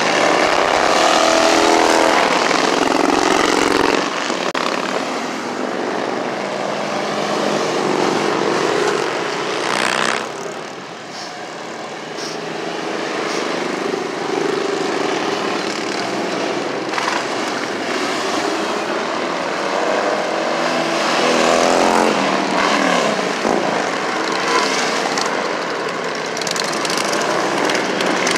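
Motorcycles and cars passing one after another on a road, their engine notes rising and falling as each goes by. The traffic noise dips for a few seconds about ten seconds in.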